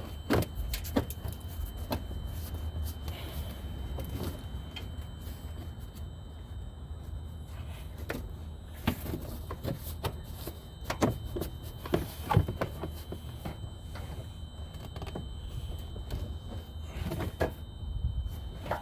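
Irregular clicks, knocks and scrapes of a plastic engine-bay cover being worked loose and lifted off, with tools handled, over a low steady rumble. The sharpest knock comes about twelve seconds in.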